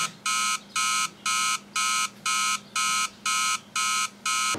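Digital alarm clock going off: a steady run of electronic beeps, about two a second, that cuts off suddenly near the end.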